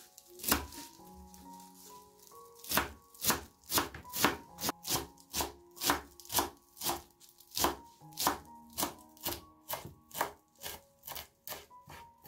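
Chef's knife chopping fresh parsley on a bamboo cutting board: one knock about half a second in, then a steady run of chops, two or three a second, from near three seconds on. Soft background music beneath.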